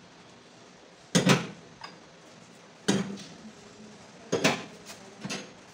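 Black burner caps being set down one by one on the burner heads of a gas stove top: four short metal clacks, a second or two apart.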